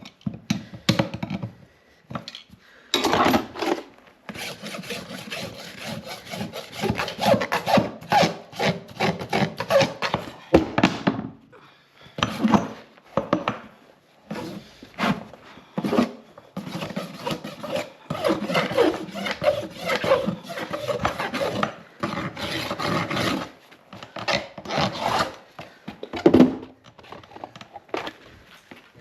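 Farrier's rasp filing a horse's hoof: runs of rough back-and-forth strokes, with short pauses between them.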